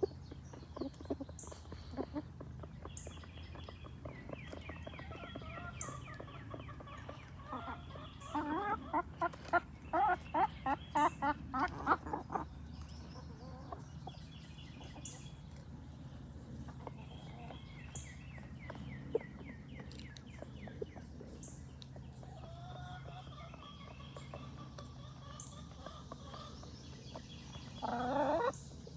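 Chickens clucking while feeding, with a quick run of clucks from about eight to twelve seconds in and another near the end, and scattered softer clucks between.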